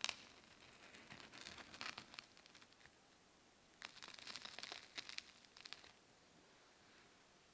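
Crisp breadcrumb-crusted fried chocolate donut being pulled apart by hand. Its crust cracks sharply at the start, then crackles and crunches in two spells of a couple of seconds each.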